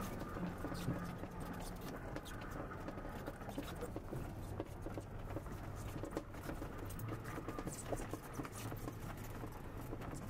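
A loaded car driving over a rough gravel track, heard from inside the cabin: a steady low engine hum under irregular knocks and rattles from the bumpy ride and the cargo in the back.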